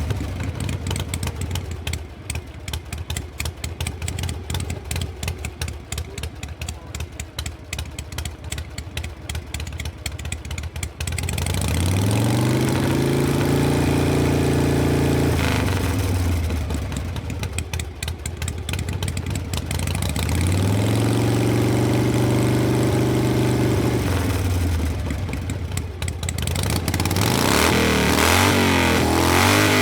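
Motorcycle engine idling with a rapid, uneven beat, then revved up, held and let back down twice, and revving up again near the end.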